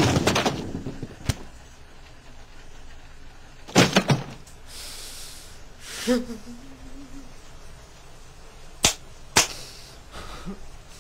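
A man crying, with a breathy sob and a short wavering whimper about five to seven seconds in. Sharp knocks and thuds, the loudest a cluster just before four seconds in and two more snaps about nine seconds in.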